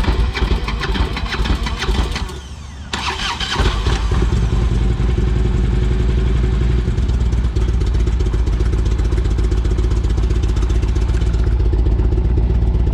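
Harley-Davidson V-twin engine running raggedly. A couple of seconds in it drops away, then catches again and settles into a steady idle. The stumbling comes as the throttle-body wiring is wiggled; the mechanic suspects a cracked throttle-body wire or a failing ECM.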